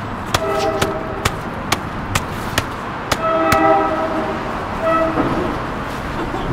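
Repeated punches landing on a body, about two a second, while a multi-tone train horn sounds three times: two blasts of about a second each, then a short one.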